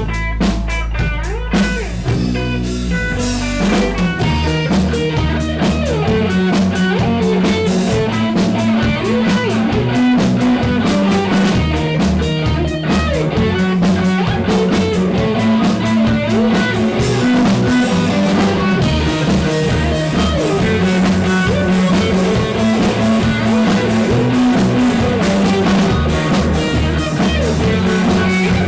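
A three-piece rock band playing live: electric guitar, electric bass and drum kit. A held low bass note opens the passage, and about four seconds in the bass and drums settle into a driving rhythm under the guitar.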